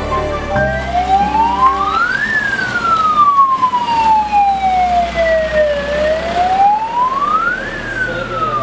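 Escort vehicle siren in a passing motorcade, wailing in a slow rise and fall: it climbs for about two seconds, falls for about three and a half, then climbs again and starts to fall near the end.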